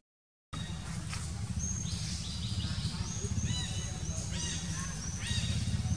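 Forest birds calling in short, high-pitched, repeated chirps from about a second and a half in, over a steady low rumble; the sound begins after a half-second dropout.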